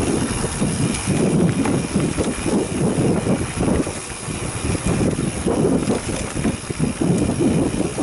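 Mountain bike riding fast down a dirt singletrack: wind buffeting the microphone in uneven gusts, over the rolling noise of the tyres and small rattles and knocks from the bike over bumps.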